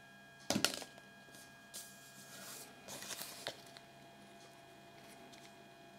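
Small plastic Kinder Surprise toy figurine picked up off a table with a short clatter about half a second in, then softer clicks and rustles of fingers turning it over.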